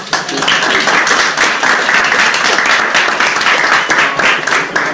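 A small group of people applauding, many hands clapping fast and loud.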